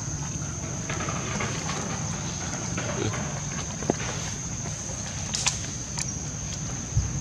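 Steady high-pitched insect drone over a low outdoor rumble, with a few short clicks and rustles.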